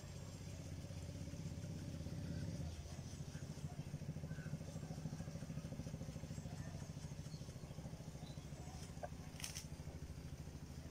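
A low, steady engine drone, like a motor vehicle running; it eases off slightly about three seconds in.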